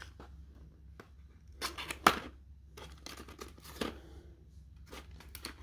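Small cardboard box being worked open by hand: short bursts of scraping and rustling packaging, with a sharp snap about two seconds in.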